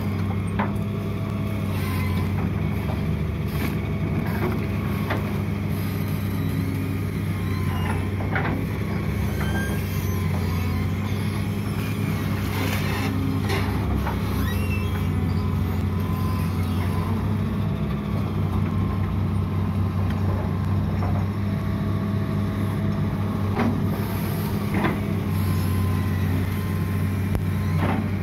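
Long-arm Hitachi UH083 excavator's diesel engine running steadily under working load, with scattered short clanks and knocks from the bucket and boom as it works the ditch bank.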